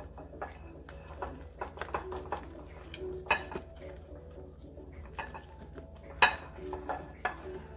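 A utensil knocking and scraping against a mixing bowl as meringue is stirred into egg-yolk batter. It makes irregular light clinks, with two louder knocks about three and six seconds in.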